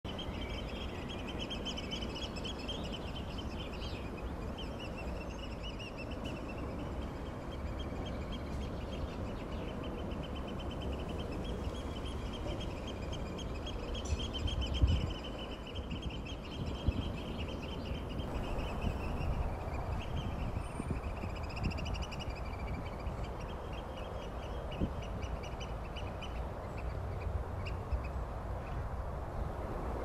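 Eurasian oystercatchers piping: long runs of rapid, shrill repeated notes, the noisy piping that goes with their squabbles over territory. A steady low rumble lies underneath, with a few knocks about halfway.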